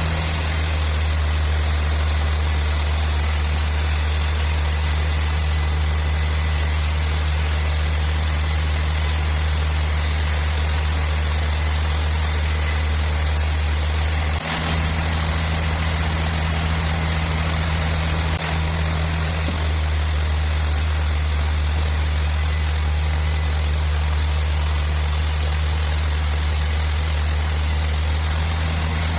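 Sawmill machinery running steadily: a low, even engine hum with a hiss of noise over it, dipping briefly twice about halfway through.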